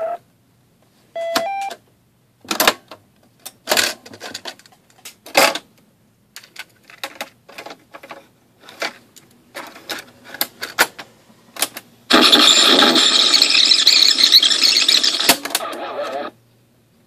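Plastic piano-key controls and cassette doors of talking book cassette players clicking and clunking as playback is stopped and a cassette is handled. About twelve seconds in, one player's speaker gives a loud, noisy burst lasting about four seconds, which cuts off abruptly.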